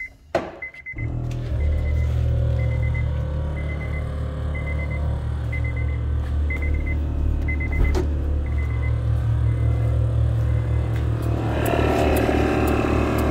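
Air Lift Performance air-suspension compressor kicking on about a second in and running steadily with a low hum, louder near the end. A high beep repeats about every half second over it for most of the time.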